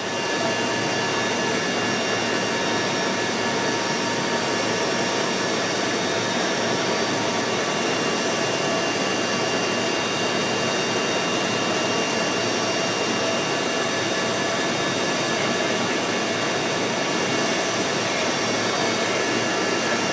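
Steady engine noise inside an aircraft cabin: a loud, even rush with several fixed whining tones running through it.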